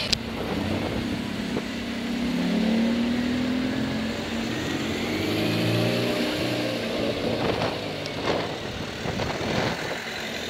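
A car engine pulling away under acceleration, its pitch climbing over a few seconds, with a few short sharp bursts of engine or exhaust noise near the end.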